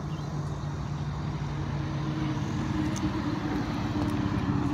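A steady low engine drone whose pitch steps up about halfway through, with one faint click about three seconds in.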